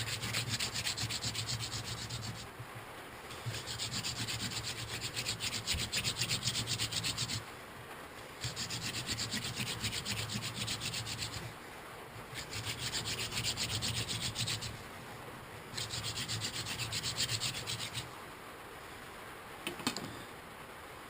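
Dried mullein hand-drill spindle spun between the palms in the notch of a basswood fireboard, a dry wooden rubbing in five bouts of a few seconds each, broken by pauses of about a second as the hands go back to the top of the spindle. A single click near the end.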